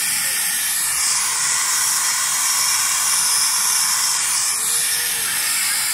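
Ground fountain firework spraying sparks with a loud, steady hiss. The hiss grows sharper about a second in and eases back a little before the five-second mark.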